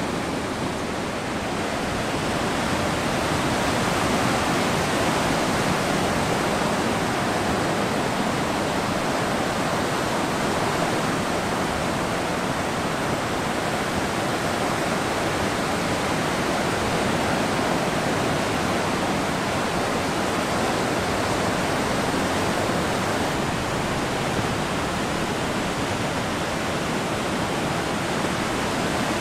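Steady roar of ocean surf breaking on a beach, an even unbroken wash with no single crash standing out.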